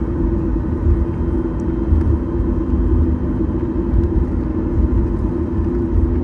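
Steady cabin noise inside a Boeing 737-8 MAX airliner: a low rumble under a constant hum from the engines and airframe, holding even throughout.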